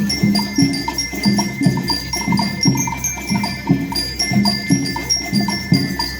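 School rhythm band playing: metal bell lyres ring out a melody over a steady, repeating drum beat.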